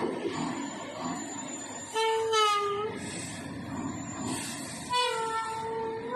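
Dump truck horns sounding two blasts about three seconds apart, each about a second long, over the steady rumble of the trucks' engines.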